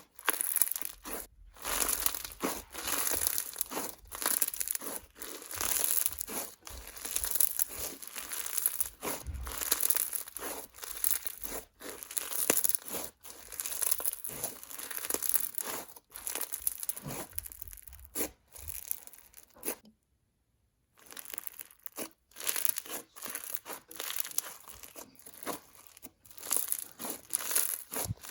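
Bingsu slime (clear slime packed with yellow Bingsu beads) being stretched, squished and poked by hand, giving soft bead crunches and crisp bubble pops in irregular bursts. The sound cuts out briefly about 20 seconds in.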